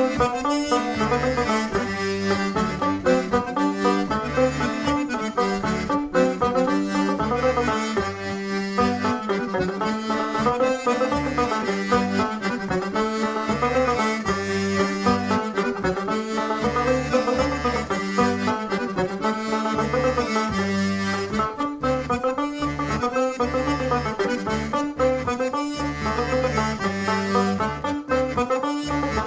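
Diatonic button accordion playing a lively traditional French dance tune, melody over a steady pumping bass, with five-string banjo accompaniment.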